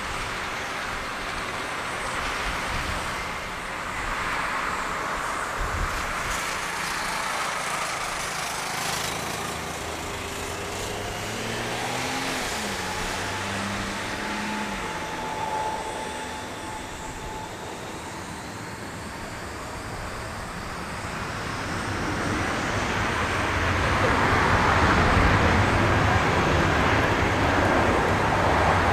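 Airbus A320-200 jet engines running at idle on the runway, then spooling up to takeoff power about two-thirds of the way in, the roar growing much louder toward the end as the takeoff roll begins.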